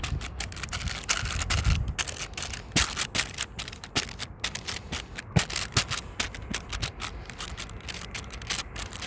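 Baking paper crinkling and rustling under hands that press and push cracker dough flat across a baking tray: an irregular run of light crackles and scrapes.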